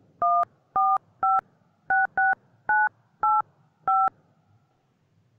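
Touch-tone telephone keypad dialing, eight dual-tone beeps pressed at an uneven pace over about four seconds. The number is being dialed to patch a third party into the call.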